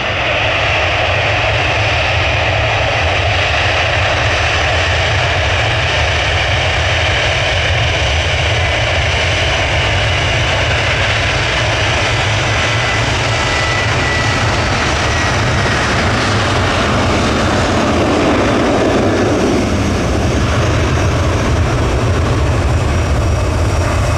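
Jet airliner engines at close range: a loud, steady rush of jet noise, with a faint thin whine about halfway through.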